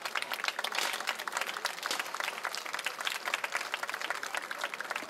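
Crowd applauding: many hands clapping at once in a dense, steady run of claps.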